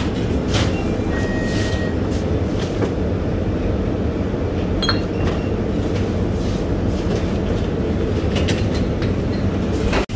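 Steady low rumbling ambience of a convenience store, with a few light clinks and taps as goods are handled at the counter.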